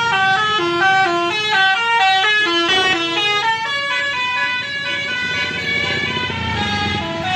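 Multi-tone musical bus horn ("telolet" horn) on a Volvo B11R high-deck coach, playing a quick repeating tune of short stepped notes, several tones sounding together. About four seconds in, the tune changes to longer held notes.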